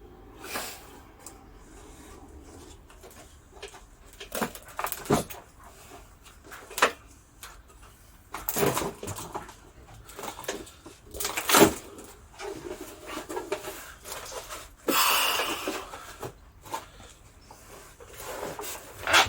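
Irregular knocks, clanks and scrapes as a metal weight-bench bar is pushed through the centre of a heavy cable drum, with a longer scrape of about a second after the louder knocks.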